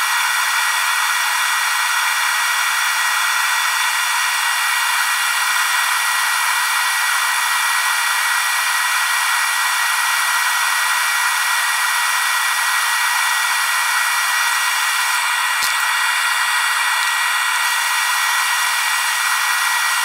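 Small high-speed power-tool motor running steadily, with a high whine over an airy hiss. There is one faint click near the end.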